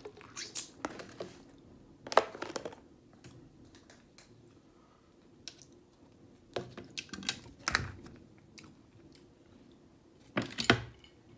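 A person chewing food at close range, with scattered sharp clicks and taps from a fork against food and containers. The loudest taps come about two seconds in and near the end.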